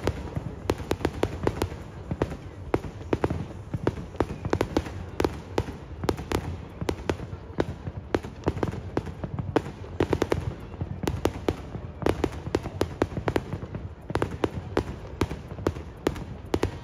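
Aerial fireworks shells bursting in a dense, unbroken barrage: sharp bangs and crackling, several reports a second.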